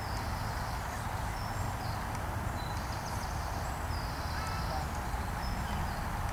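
Open-field ambience: a steady low rumble of wind on the microphone, with faint high chirping trills every second or so.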